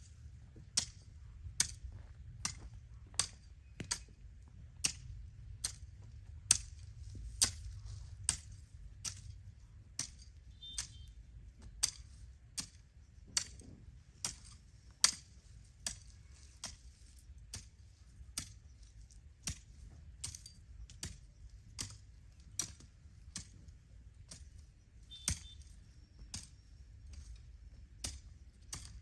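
A long, even series of sharp clicking strokes from a hand tool at work, a little more than one a second, over a low steady rumble.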